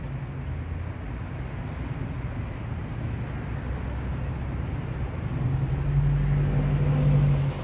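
Motor vehicle noise: a steady low rumble that grows louder about five seconds in, with a strong low hum, then drops off just before the end.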